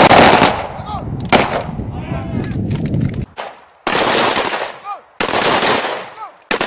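Several Kalashnikov-pattern assault rifles firing single shots in an uneven string, about five loud reports roughly a second and a half apart with fainter shots between them, each trailing off in an echo.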